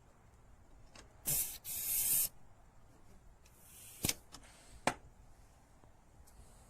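Two short bursts of hissing, like gas or air rushing out of a fitting or hose on air-conditioning service gear, a little over a second in. A fainter hiss follows, then two sharp clicks about four and five seconds in.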